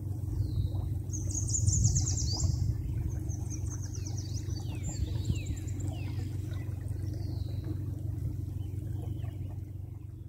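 Several songbirds singing, with rapid high trills and short down-slurred whistles, over a steady low motor hum. The sound starts to fade near the end.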